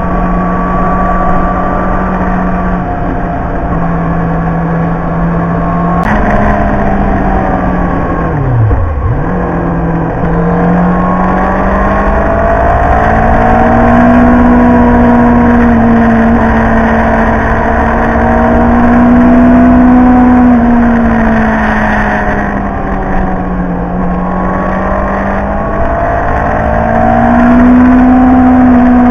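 Sport motorcycle's engine running at speed, its note rising and falling with the throttle and stepping suddenly a few times, over a steady rush of wind.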